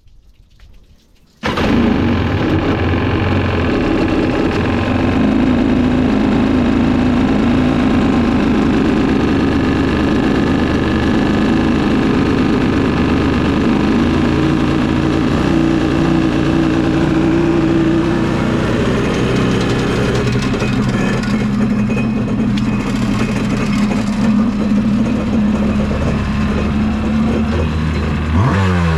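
Yamaha Wave Blaster jet ski's two-stroke engine starts abruptly about a second and a half in, freshly tuned, with water flowing through it. It then runs steadily at a fast idle, and revs rising near the end.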